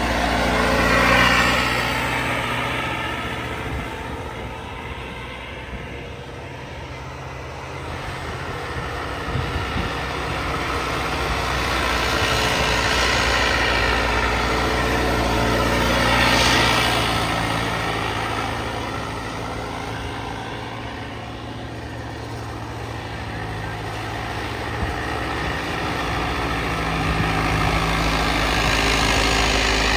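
Farmtrac 90 HP tractor's diesel engine working under load as it pulls a spring-tine cultivator through ploughed soil. The sound grows louder and fainter several times as the tractor passes back and forth.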